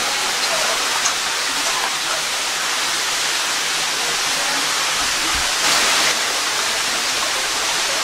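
Steady rush of water in a narrow rock slot canyon, with a brief louder burst about six seconds in.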